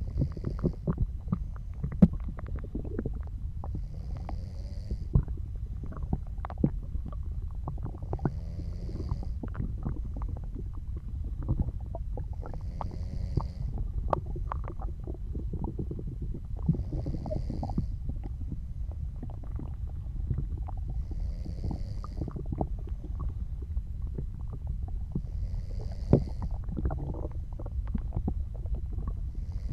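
Stomach and intestinal gurgling and rumbling, full of small pops and squelches, with soft snoring breaths about every four seconds.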